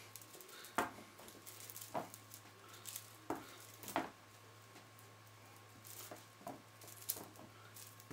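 A string of LED lights being uncoiled and spread out by hand, its plastic bulb holders and wire tapping and clicking against the tabletop in irregular, scattered taps, the loudest about a second in and about four seconds in.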